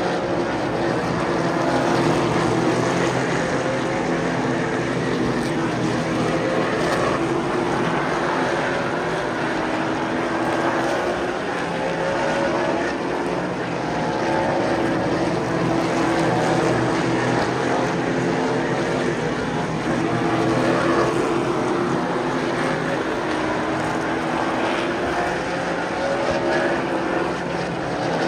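Super Late Model stock cars' V8 engines running on the track, a steady loud drone whose pitch keeps rising and falling as the cars go by.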